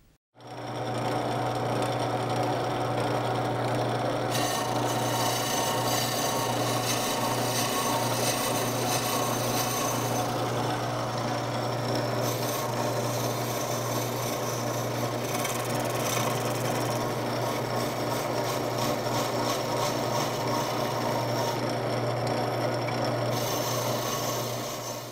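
Wood lathe running with a boring bar taking very small finishing cuts inside a wooden banjo rim: a steady motor hum under a continuous scraping of the cutter on the wood.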